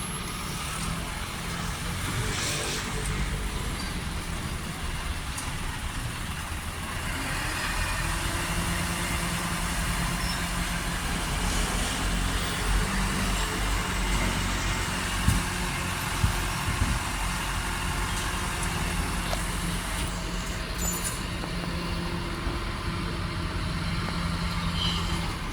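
Garbage truck's engine running steadily at the collection stop, with a low hum that comes and goes and a few short clicks partway through.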